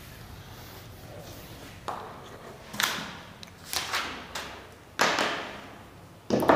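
Irregular handling knocks and rustles close to a clip-on microphone, about six in four seconds.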